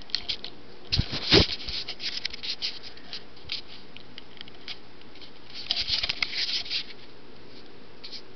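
Handling noise on a handheld camera's built-in microphone: fingers and the camera strap rubbing and knocking against the camera body. A loud thump comes about a second in, scattered scratchy clicks follow, and a denser burst of rustling comes near six seconds.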